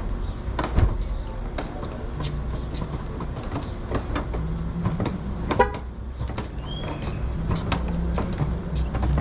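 Steady low vehicle engine hum with scattered clicks and knocks; the sharpest knock comes about a second in, and a short squeal about five and a half seconds in.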